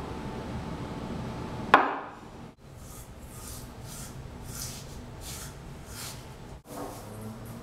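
A ceramic mug set down on a table with a sharp knock about two seconds in, then a toothbrush scrubbing teeth in even strokes, about one and a half a second.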